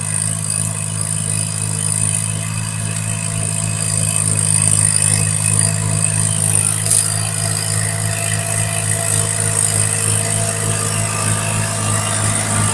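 Farm tractor engine running steadily at an even idle, with no change in pitch.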